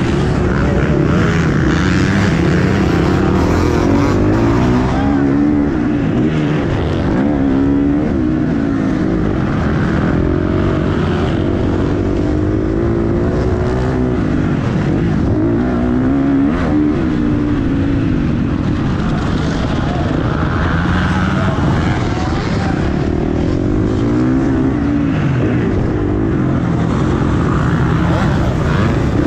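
Motocross bike engine heard close up from the rider's helmet, revving up and dropping back over and over as the bike accelerates along the straights and backs off into the turns.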